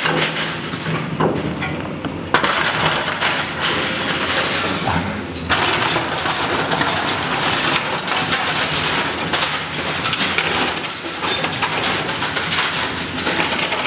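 Komatsu excavator's bucket tearing apart a corrugated metal roof and its timber frame: a continuous, irregular crunching and cracking of sheet metal and wood, with sudden louder crashes about two seconds and five and a half seconds in.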